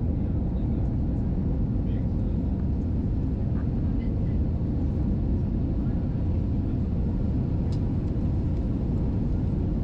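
Steady cabin noise inside an Airbus A320 airliner in flight: an even low rumble of engines and airflow with a faint hum.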